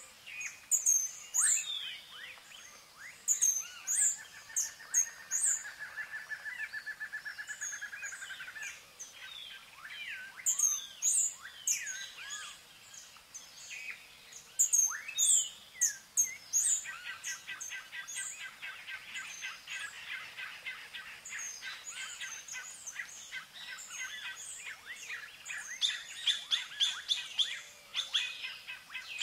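Several songbirds singing and chirping. Short high chirps repeat throughout, a steady trill runs for several seconds about four seconds in, and a long rapid string of repeated notes begins about halfway through.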